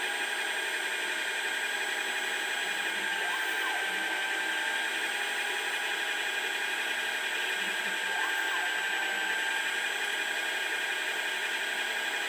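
DIY CNC lathe running an OD-turning G-code program under Mach3: its motors make a steady mechanical whine with several high tones, unchanged throughout.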